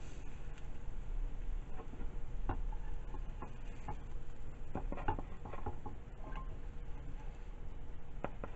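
Plastic slotted spatula scraping and tapping against a frying pan while lifting out pancakes: a few scattered light clicks and knocks over a low steady hum.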